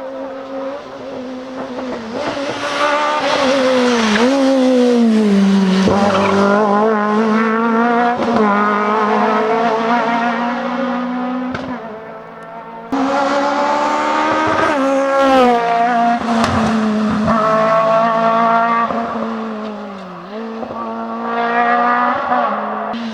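Renault Clio Maxi rally car's four-cylinder engine at full stage pace, revving up through the gears and falling back off the throttle for corners, again and again. About thirteen seconds in the sound jumps abruptly to another stretch of hard running.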